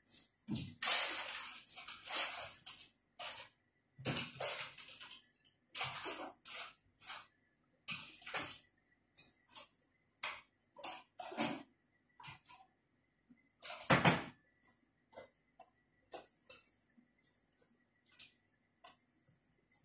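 Irregular rustling and clattering from someone handling things close to the microphone. It comes in short bursts of a second or less, with brief pauses between them.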